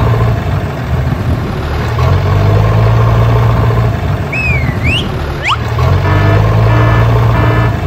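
Tractor engine running in stretches of about two seconds, easing off between them. About halfway through there are a few quick whistle-like tones that slide up and down, and near the end a fast run of repeated high tones.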